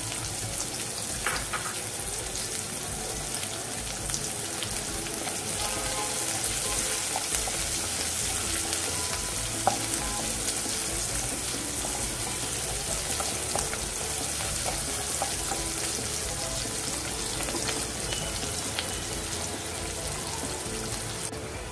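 Chopped onions frying in hot oil in a non-stick pan: a steady sizzle, with a wooden spatula stirring and scraping the pan now and then.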